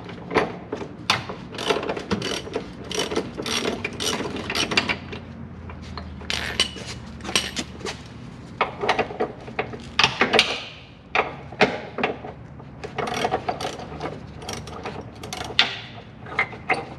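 Half-inch ratchet with a 19 mm socket clicking in bursts as body-mount bolts are loosened, the pawl ratcheting on each back-stroke, with short pauses between runs of strokes.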